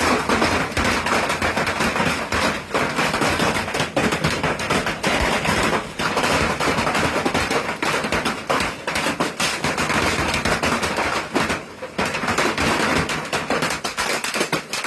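Heavy hail pounding down: a loud, dense, continuous clatter of hailstones striking hard surfaces.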